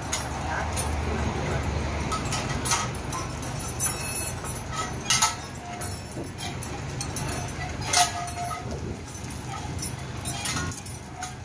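Steel lifting chains clinking and jangling as they are unhooked from concrete floor planks and swing from a crane spreader beam, with a sharp metallic clink about eight seconds in. The Furukawa Unic truck crane's engine runs steadily underneath.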